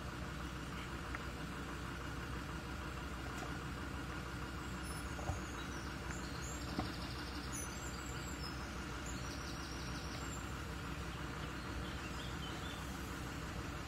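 A Land Rover Discovery 3 engine ticking over at idle as the vehicle creeps slowly down rock steps, a low steady hum under the steady noise of the shallow river flowing. Two small knocks come in the middle, with a few faint bird chirps.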